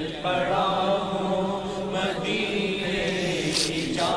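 Unaccompanied devotional chanting of an Urdu naat, the melody drawn out in long held notes over a steady low hum.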